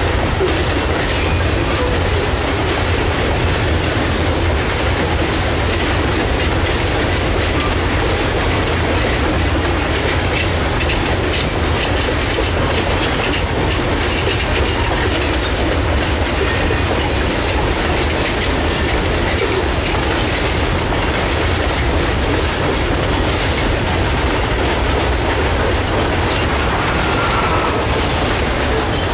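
Loaded covered hopper cars of a sand train rolling past: a steady heavy rumble with steel wheels clicking over rail joints, and a faint wheel squeal near the end.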